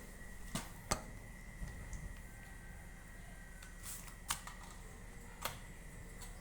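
56-inch industrial ceiling fan running on test, with a steady high whine and a low hum, and a few sharp, irregular clicks.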